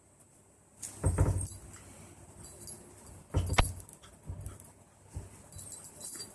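Keys jangling off and on, with two dull thumps, about a second in and again about three and a half seconds in.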